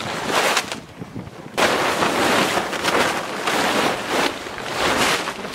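Plastic tarp crinkling and rustling loudly as it is crumpled and bundled up in the arms, in a few swishing bursts with a short lull about a second in.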